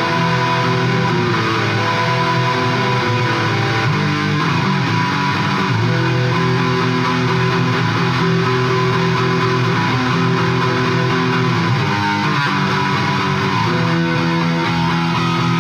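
Electric guitar being played, with held notes and chords that change every second or two.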